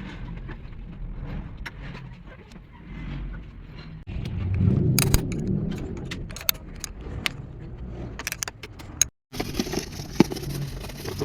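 A car engine running with a low rumble, overlaid by scattered metallic clinks and clicks, with abrupt changes in the sound about four and nine seconds in.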